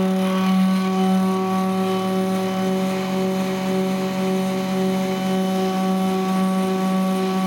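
Stepper motors of a homemade CNC hot-wire foam cutter humming a steady pitched tone as they drive the threaded rods through a wing-core cut. A fainter, lower tone shifts pitch about three seconds and again about five seconds in.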